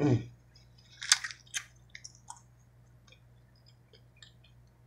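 Close-up mouth sounds of a person chewing food: wet smacking and squishing, with sharp crackly smacks about a second in and scattered small clicks after. A brief low falling sound comes at the very start.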